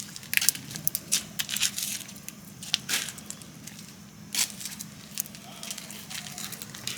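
Dried cacao bean's brittle shell being cracked and peeled off by hand: irregular small crackles and snaps.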